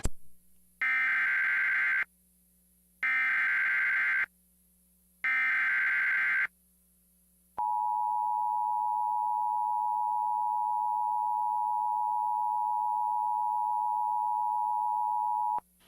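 Emergency Alert System header: three bursts of SAME digital data tones, each about a second long with a second's gap between them, then the steady electronic attention tone for about eight seconds. The sequence announces a National Weather Service severe thunderstorm warning.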